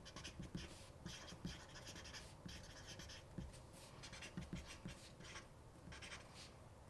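Marker writing block letters on paper: a run of faint, short strokes as each letter is drawn.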